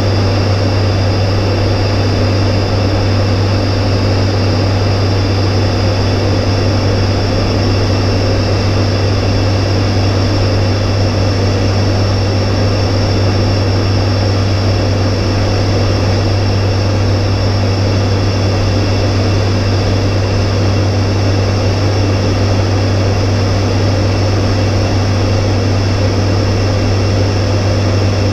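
Cockpit noise of an ATR 72-500 in flight: the twin turboprops and their propellers drone steadily as a strong low hum, with faint high steady whines above it.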